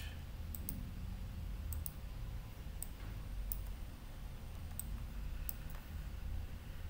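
Computer mouse clicking: a few sharp clicks spaced about a second apart, some in quick pairs, over a low steady hum.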